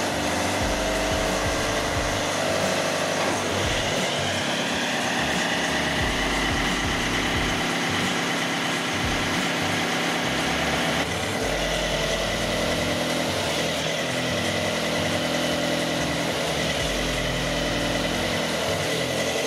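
Diesel engine of a Linde H35 D forklift running steadily, the sound shifting abruptly about eleven seconds in.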